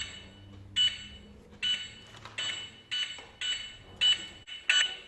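Toy cash register's barcode scanner beeping as items are scanned: about seven short, high electronic beeps, roughly one every half-second to one second.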